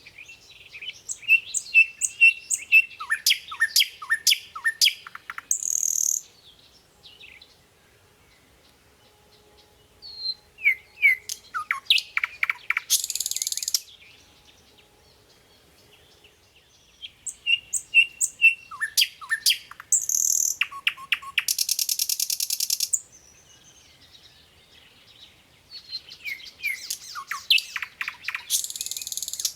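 A songbird singing the same song four times, about every seven or eight seconds: each song is a quick run of chirps and down-slurred whistles ending in a buzzy trill.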